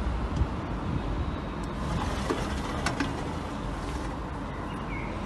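Low, steady outdoor rumble of road traffic, with a few faint clicks as a window is unlatched and swung open.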